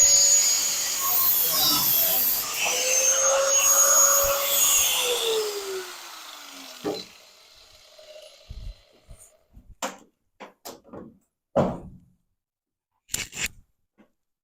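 High-speed handheld power tool working on the car's body metal. It runs in two spells with a short break, then is released and winds down with falling pitch about five seconds in. A few scattered light knocks and clicks follow.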